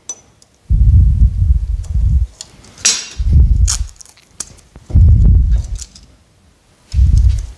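Tape being pulled off the roll and wrapped around the jaws of a pair of pliers: a few short rips and scratches, among four bursts of loud low rumbling from handling close to the microphone.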